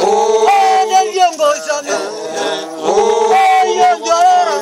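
A group of Samburu singers singing a traditional song together, unaccompanied, holding long, wavering notes.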